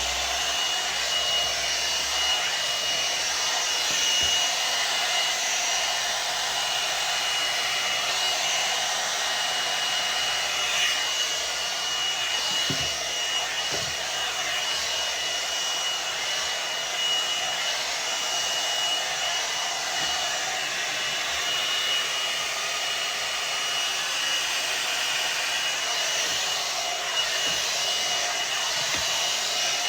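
Hot-air hairdryer brush running steadily on its high setting: an even rush of blown air with a steady high whine.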